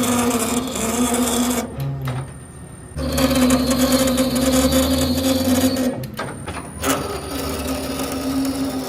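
Metal lathe running with a steady hum and hiss, in stretches broken by brief dips about two seconds in and again about six seconds in.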